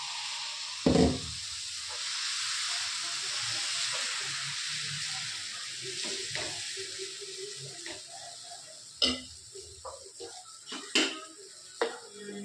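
Dosa batter sizzling as it is poured onto a hot, oiled iron tawa and spread in circles with a ladle. The hiss starts at once and slowly fades, with a loud knock about a second in and a few sharp clicks near the end.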